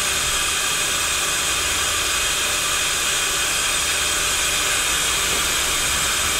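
Weller WTQB1000 rework station's vacuum pick-up running, holding a QFN chip on its nozzle: a steady hiss of air with a low hum underneath.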